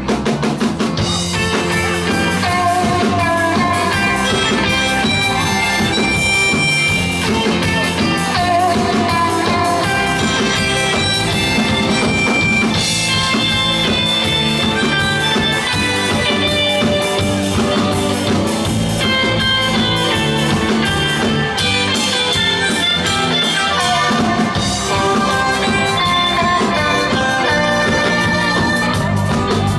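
Live rock-and-roll band playing an instrumental passage without vocals.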